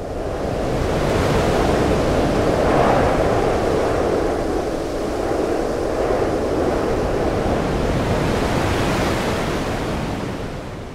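A loud, steady, wind-like rushing noise with no pitch in it, swelling up over the first couple of seconds and fading away near the end.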